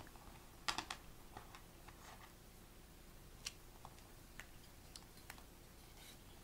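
Light clicks and taps of small plastic and metal parts being handled as a mini SG90 servo is fitted into its mount on a Meccano frame: a quick cluster of clicks about a second in, then single clicks every second or so.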